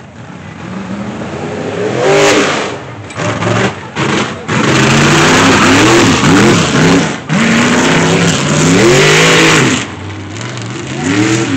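Off-road freestyle buggy's engine revving hard again and again, its pitch rising and falling, loudest and most continuous from about four to ten seconds in with a brief drop off the throttle near seven seconds, mixed with the noise of tyres spinning in loose dirt.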